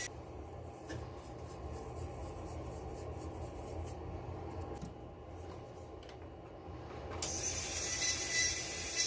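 Light hand-tool rubbing and scraping strokes on a brass ring blank. About seven seconds in, a louder steady high hiss starts.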